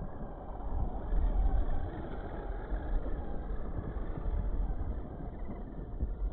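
Tamiya Wild One RC buggy driving and sliding over loose dirt close by: a steady, rough rumbling noise with no clear motor whine, loudest about a second in.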